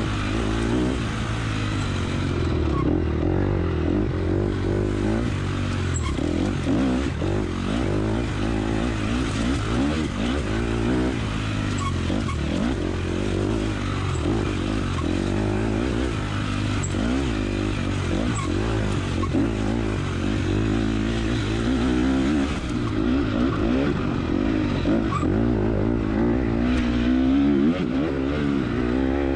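Dirt bike engine recorded by an onboard camera while the bike is raced, its note rising and falling constantly as the rider works the throttle and gears.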